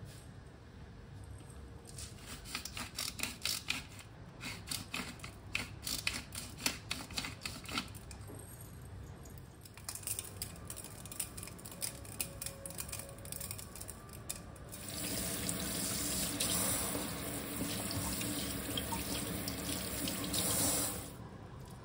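A series of light knocks and clinks of kitchen handling, then a kitchen tap running steadily for about six seconds and shut off near the end.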